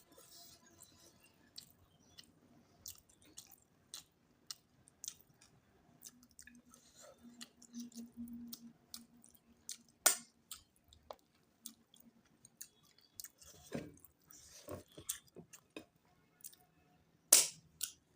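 Close-up chewing and wet mouth sounds of a person eating, with irregular small clicks and two louder sharp clicks, one about ten seconds in and one near the end.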